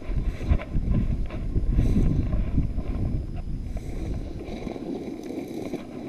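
Walking through tall dry grass and brush: dense, uneven rustling and swishing of stems against legs and clothing, with wind buffeting the microphone. It is loudest in the first half and eases off after about three seconds.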